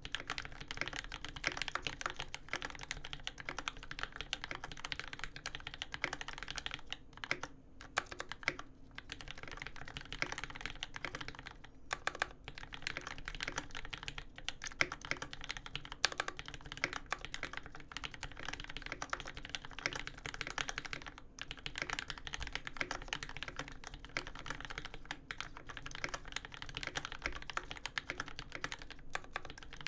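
Steady fast typing on a custom mechanical keyboard: a Dolphin v2 case with an aluminium plate, lubed Cherry Top Tealios v2 linear switches and GMK keycaps, a dense run of keystroke clacks. The typing breaks off briefly about a third of the way in and again about two thirds of the way through.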